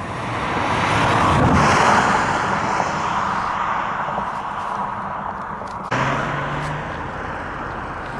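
A road vehicle passing by, swelling to its loudest about a second and a half in and then slowly fading. About six seconds in, the sound changes abruptly.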